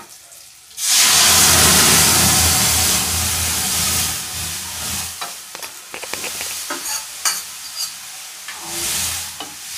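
Boiled chana dal poured into hot tadka oil in an aluminium kadhai: a loud, sudden sizzle about a second in that fades over the next few seconds. A spoon stirs and clinks against the pan, and a smaller second sizzle comes near the end as the last of the dal is tipped in.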